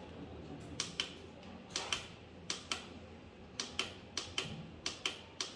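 Magnification-increase button on a handheld mouse video magnifier being pressed again and again: a dozen or so sharp clicks, mostly in close pairs, as the zoom is stepped up.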